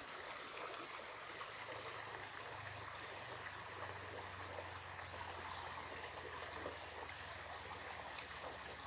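Steady rush and trickle of a small mountain stream.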